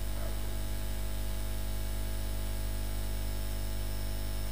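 Steady electrical mains hum with an even hiss over it, no speech.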